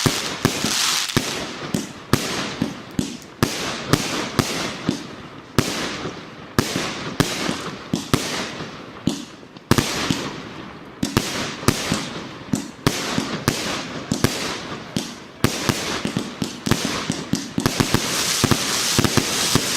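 A 100-shot 1.2-inch fireworks cake firing in quick succession: sharp launch pops and bursts several times a second, with a crackling hiss at the start and swelling again near the end.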